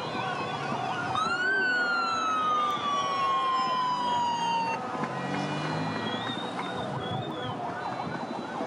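A siren sounds in one long wail that slides slowly down in pitch for about three and a half seconds, with shorter wavering tones around it over a steady background din.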